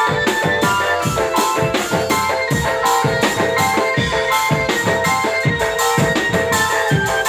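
Dramben band music: drums beating a steady, busy rhythm under a keyboard melody.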